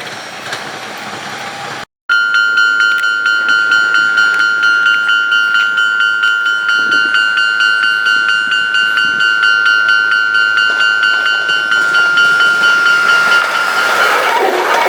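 Japanese level-crossing warning bell ringing in a rapid, even repeat of one high tone, sped up to double speed; the sound cuts out briefly about two seconds in, and the tone changes near the end.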